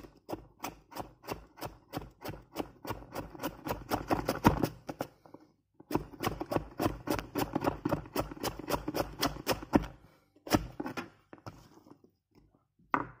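Chef's knife slicing through a raw carrot and knocking on a wooden cutting board, about four quick strokes a second. Two runs of chopping with a short pause between, then a few single cuts near the end.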